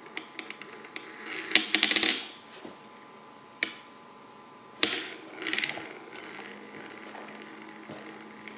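A coin or top set spinning by a magnetic stirrer, clattering against the stirrer plate in short bursts: a rapid rattle about a second and a half in, a sharp click near the middle, then another brief rattle, over a faint steady hum.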